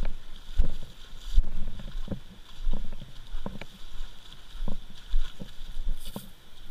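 Irregular thumps, knocks and splashes of footsteps wading through shallow water over river cobbles, about one or two a second.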